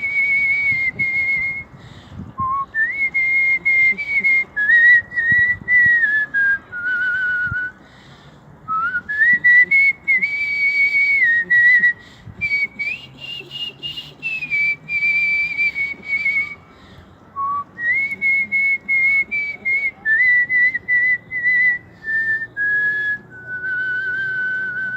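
A young man whistling a tune: one clear pure tone stepping between held notes and short glides, in phrases with brief breaks for breath.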